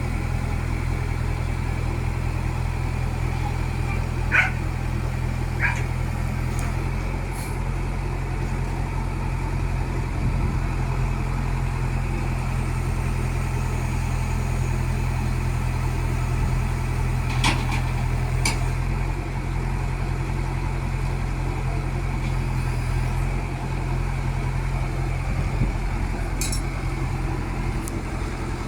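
Diesel engine of a Tata Hitachi 70 excavator running steadily throughout, its note shifting slightly a couple of times. A few short, sharp sounds stand out over it.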